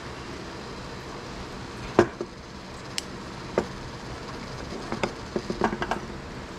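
Metal clacks and clinks of a handled jig-head casting mold being handled and opened, with freshly cast lead jig heads clinking against it and onto the table: one sharp clack about two seconds in, two more single clicks, then a quick run of small clinks near the end, over a steady low hum.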